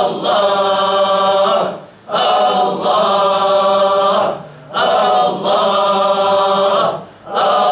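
A group of men chanting the divine name "Allah" together in Sufi dhikr. The chant comes in long drawn-out phrases of about two and a half seconds each, with a short break for breath between them.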